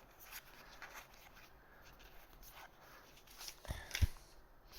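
Trading-card booster pack being opened and its cards handled: faint crinkling and rustling with small clicks, and two low thumps close together near the end.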